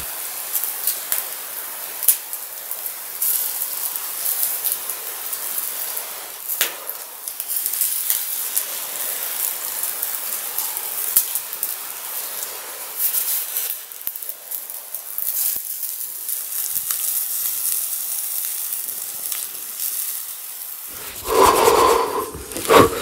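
Whole fish sizzling on a wire grill over a wood fire, with a steady hiss and scattered crackles and pops from the burning wood. A brief louder sound comes near the end.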